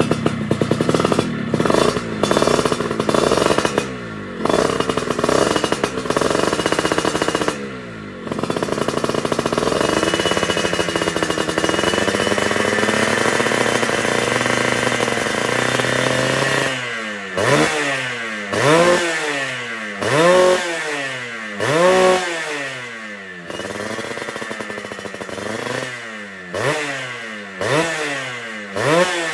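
Tornado GS motorcycle engine through a PTECH aftermarket exhaust, being revved with a crisp note. Short choppy blips for the first several seconds, then revs held steady for about eight seconds, then repeated blips of the throttle, rising and falling about every second and a half.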